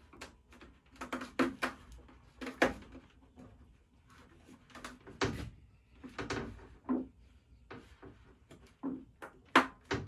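Rubber plucker fingers being pulled one by one into the holes of a plastic 5-gallon bucket: irregular knocks, taps and rubbing as the bucket is handled and shifted on the bench, some a little louder and more hollow-sounding than others.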